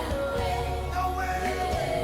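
Worship music playing: a song with a steady bass and a held, sung melody.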